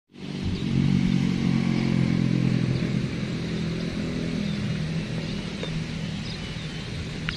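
An engine running steadily, loudest early on and slowly fading away over several seconds.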